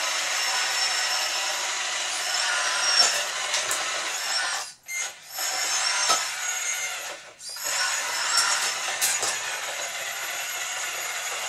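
Huina Kabolite K966 1:14 RC hydraulic wheel loader's electric motors running with a high whine as it drives and works its bucket, with a few clicks, cutting out briefly twice, about five and seven seconds in.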